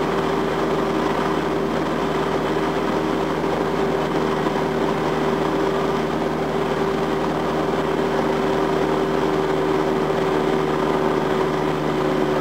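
Single-engine light aircraft's piston engine and propeller in steady cruise, heard inside the cockpit: an unchanging drone with a steady hum running through it.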